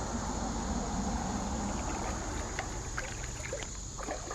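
Creek water sloshing and lapping, with a scatter of small splashes and clicks in the second half, over a steady low rumble.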